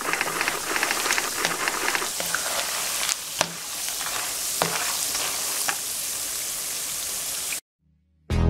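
Raw peanuts sizzling in hot oil in a pan: a steady frying hiss with scattered crackles and pops. It cuts off suddenly near the end.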